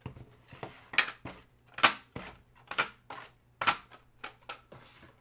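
Sharp plastic clicks and snaps from hands handling trading-card packaging and a clear plastic card case: a quick series, the loudest about once a second.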